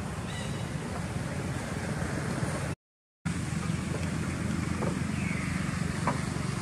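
Steady low outdoor rumble, cut by a short dead gap about three seconds in. A faint short high call comes just after the start, and a couple of faint clicks follow later.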